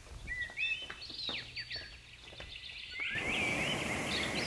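Birds chirping in a forest soundscape, short rising and falling whistled notes one after another. About three seconds in, a steady rushing hiss comes in under the birdsong.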